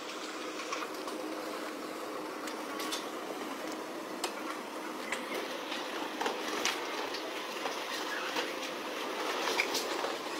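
Steady churning noise from a cargo ship's engine and propeller wash, broken by scattered sharp cracks and crunches as the ship's hull presses into small moored boats.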